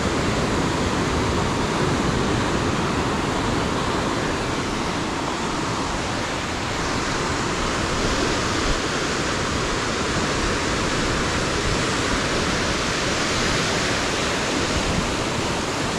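Steady rushing noise of ocean surf.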